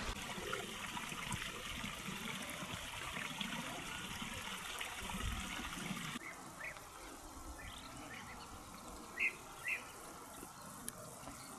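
Shallow mineral spring water trickling over stones in a small stream bed. After a cut about six seconds in it is quieter, with a few short high chirps, two of them louder near the end.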